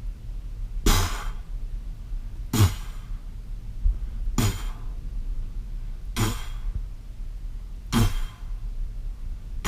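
Background music with a slow, even beat: a deep drum hit with a splashy cymbal-like tail about every second and three quarters, over a steady low bass.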